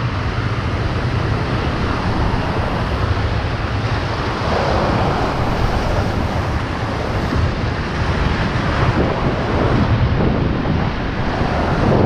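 Ocean surf breaking and washing white over shoreline boulders, swelling and ebbing a few times, with wind buffeting the microphone as a steady low rumble.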